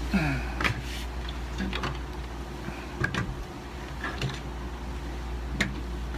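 Plastic Lego models being handled and moved, with about five light clicks and knocks spread over several seconds, over a steady low hum.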